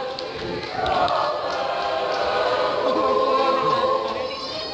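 A choir singing long held notes, several voices together.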